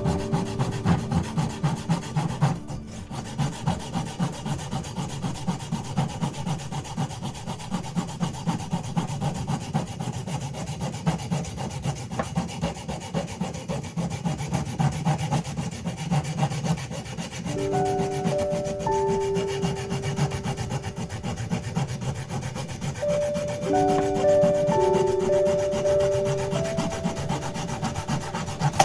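Hand saw cutting through wood in quick, even back-and-forth strokes, a rasping rub on each pass. Soft melodic music notes join over the sawing in the last third.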